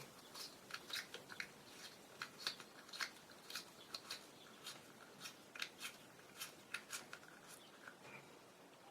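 Faint, irregular small clicks and ticks, two or three a second, of a metal lens part being turned clockwise to tighten it as the Pentax-M 28mm f/2.8 lens is reassembled.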